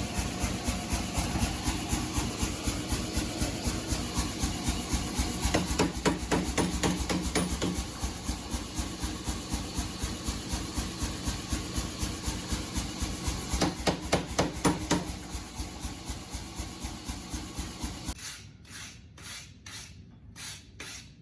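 Mechanical power hammer running, its ram striking hot steel in a fast, even rhythm over the hum of its motor. About 18 seconds in, the run stops and a few separate, sharper metallic knocks follow, about two a second.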